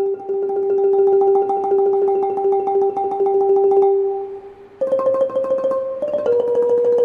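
Instrumental interlude music: one note sustained by fast repeated strokes for about four seconds, then a short dip and a few stepping notes played the same way.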